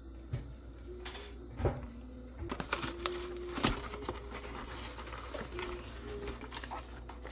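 Scattered light clicks and knocks of tableware during a meal, a few sharp ones standing out over low room noise.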